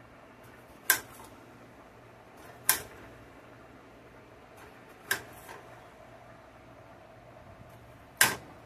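A knife slicing a green tomato by hand over a ceramic plate: four sharp clicks, two to three seconds apart.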